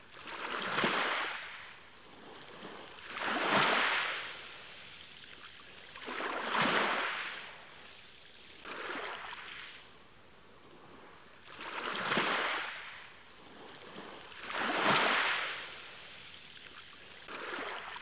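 Small ocean waves washing onto the shore: a hiss of surf that swells and fades about every two to three seconds, seven surges in all, some stronger than others.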